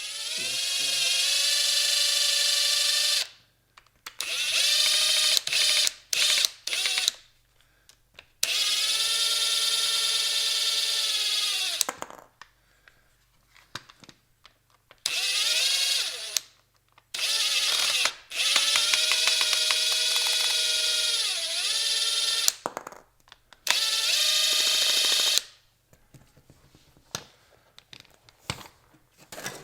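Cordless drill/driver backing out the housing screws of a 90-degree drill attachment: its motor whines in about seven separate runs of one to four seconds, each spinning up and winding down, with short pauses between screws.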